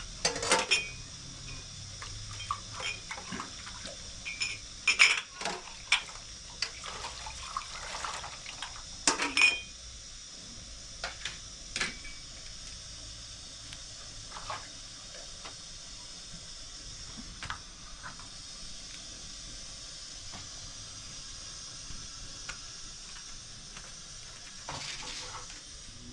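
Scattered sharp clinks and knocks of hard objects, most of them in the first ten seconds and a few more later, over a steady hiss.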